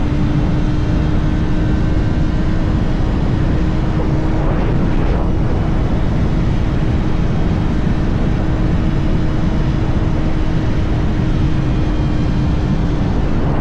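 2024 Kawasaki ZX-6R's 636 cc inline-four engine running at a steady cruise, holding one even engine note, with heavy wind rumble.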